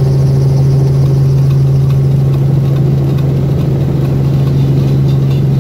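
Small helicopter's engine and rotor running steadily on the ground before takeoff, heard inside the cabin as a loud, even hum with a strong low drone.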